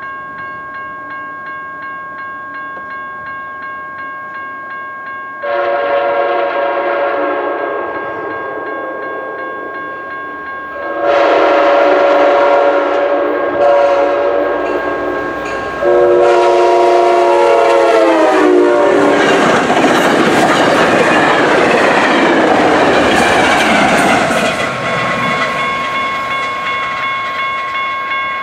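Grade-crossing warning bell ringing steadily while a Sounder commuter train sounds its air horn in three long blasts, the last one dropping in pitch as the locomotive passes. The train then rushes past with a loud rumble of wheels and engines, and the crossing bell keeps ringing near the end.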